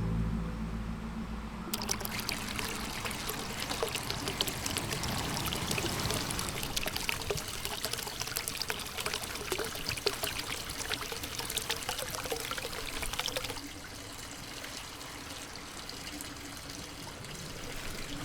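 Music ends about two seconds in and gives way to water splashing and pouring, a dense spatter of droplets. Near the end it drops to a softer, steady trickle.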